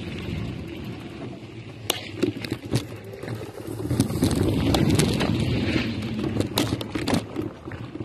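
Mountain bike rolling down a rough dirt trail: a steady rumble of tyres and wind on the microphone, broken by sharp clatters and knocks as the bike jolts over bumps.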